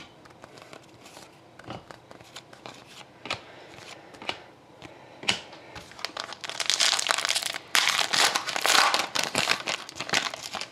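Cards being handled, with a few light clicks as they are flipped. Then, from about six seconds in, the wrapper of a trading card pack crinkles loudly as it is opened and the cards are pulled out.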